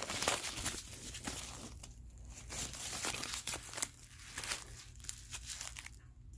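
Foam packing wrap and paper crinkling and rustling as they are handled and pulled away, in dense bursts of crackle.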